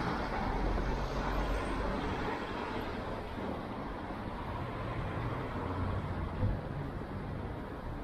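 Road traffic: cars passing, a steady wash of engine and tyre noise.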